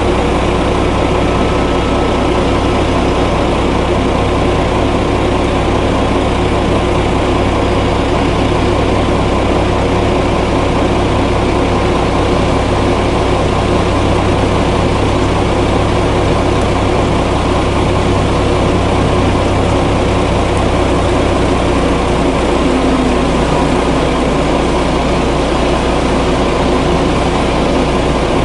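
Heavy diesel engines of coal-hauling trucks and machinery idling steadily, with a low, even hum. The low hum changes slightly about three-quarters of the way through.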